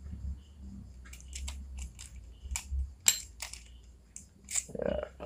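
Scattered light metal clicks and ticks as the aluminium handle of a Hammerhead Flanker 1000 spinning reel is worked loose and taken off the reel body, over a low rumble of handling during the first few seconds.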